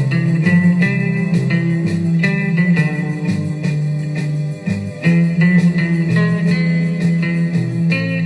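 Music track led by plucked guitar over a bass line, with a steady beat.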